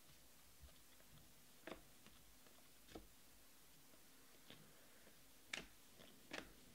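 Near silence with faint, scattered clicks of a stack of glossy trading cards being picked up and flipped through by hand, about one every second, the loudest about five and a half seconds in.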